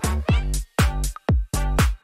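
Electronic background music with a steady, choppy beat of deep kick drums, several hits a second.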